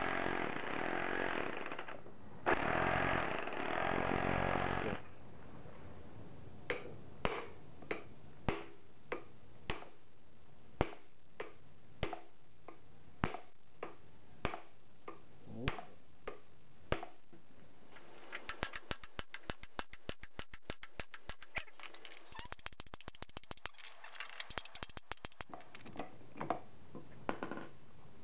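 Cordless impact driver hammering on the large centre nut of an Audi A8 D3 front hub, in two buzzing runs of about two seconds each, with the nut now loose. After that a socket ratchet clicks, first one sharp click about every half second as it is swung, then fast continuous clicking as the nut is spun off.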